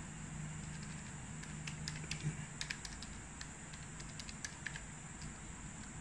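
Calculator keys being pressed: about a dozen soft, sharp clicks at an uneven pace as a multiplication and division is keyed in, over a faint steady background hum.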